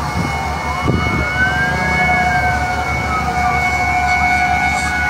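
Fire truck sirens wailing: one siren's pitch rises for about two seconds and then slides back down, while other siren tones hold steady under it.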